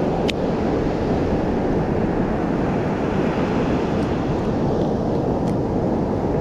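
Steady roar of ocean surf with wind buffeting the microphone, with a couple of faint clicks.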